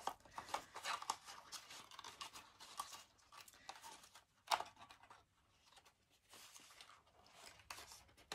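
Cardstock rustling and crackling as hands bend and push the stiff interlocking flaps of a folded paper gift box into their slots, with scattered small ticks and one louder tick about four and a half seconds in.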